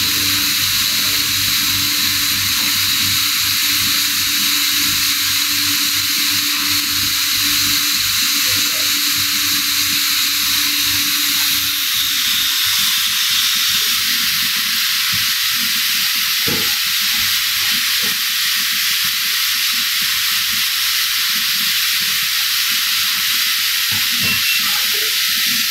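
Loud, steady hiss of kitchen background noise with a low hum beneath it and a faint high whistle that fades out about halfway through.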